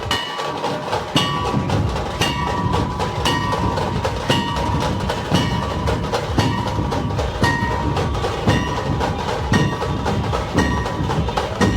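Loud percussion-heavy music from a DJ sound system, with a steady beat of sharp strokes about once a second, lighter hits between them, and a ringing tone held on top.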